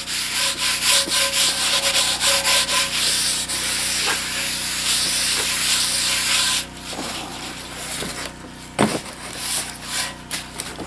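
Paper towel scrubbed back and forth over the bottom of a cast iron skillet in quick repeated strokes, wiping off the loose rust left after fire-cleaning. The scrubbing stops about two-thirds of the way in, and a few light knocks follow as the pan is handled, the loudest near the end.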